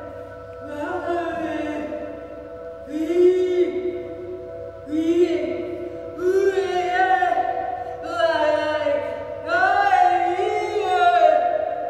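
Vocal music: a voice singing short phrases of held and gliding notes, about one every second and a half, over a steady drone.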